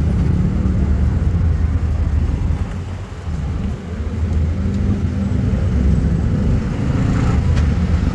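Low, steady engine and road rumble of a motor vehicle driving through city traffic, heard from on board. It dips briefly about three seconds in.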